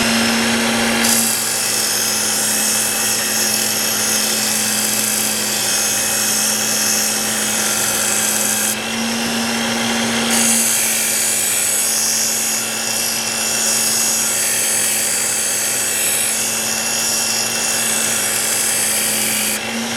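Ken Onion Edition Work Sharp electric belt sharpener running at a fast speed setting, with a knife blade drawn against its coarse 120-grit belt in two long grinding passes. Each pass adds a high hiss over the motor's steady hum, which drops slightly in pitch under the load; there is a short break of about a second and a half around the middle.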